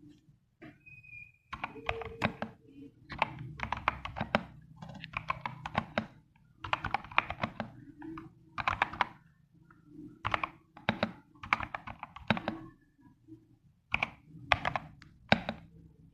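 Mechanical keyboard with PBT keycaps being typed on: runs of fast keystrokes lasting a second or two, broken by short pauses.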